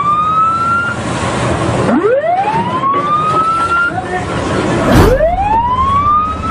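Ship's warning siren winding up in rising wails that start again about every three seconds, over wind and rushing sea spray as the ships grind alongside. A heavy thump about five seconds in.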